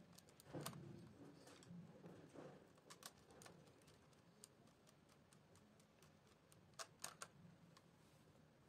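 Near silence broken by faint clicks and handling noise from a screwdriver at a miniature circuit breaker's terminal screws, then three sharp clicks close together about seven seconds in.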